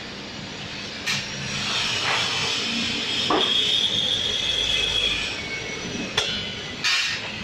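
Green coffee beans sliding out of a stainless steel hopper and dropping through its central hole into a coffee roaster: a steady hiss of falling beans, with a few sharp clicks against the metal.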